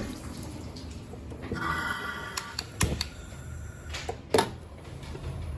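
A few sharp, irregularly spaced clicks from a gas range being worked, the loudest about four and a half seconds in, over a low steady hum.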